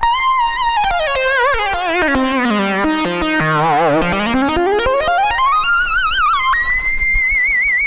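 Omnisphere "Screamer Lead" synth lead playing one line that slides slowly down from a high note to a low one, then glides back up with a wide vibrato. Near the end it leaps up an octave and holds a high wavering note.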